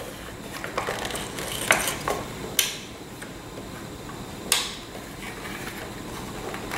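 Plastic sun–earth–moon tellurion model being turned by hand, its parts giving a few scattered sharp clicks and knocks, the loudest about two and a half and four and a half seconds in.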